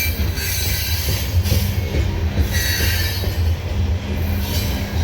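Loaded CSX coal train rolling by: a steady low rumble of the cars on the rails, broken by short spells of high wheel squeal near the start, about a second and a half in, again around two and a half to three seconds in, and near the end.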